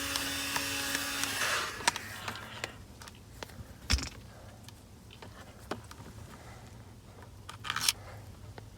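A powered screwdriver with a Phillips bit runs briefly, backing out the long screw of a cruise control switch, and stops about a second and a half in. After that come scattered light clicks and knocks of parts being handled, with a short scrape near the end.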